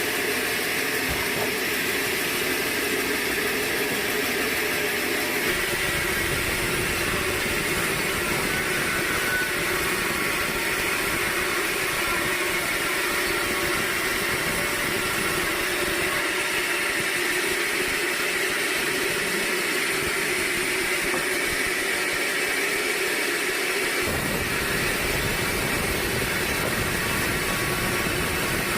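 Sawmill machinery running with a steady mechanical din; a low rumble comes and goes, dropping out for several seconds partway through and returning near the end.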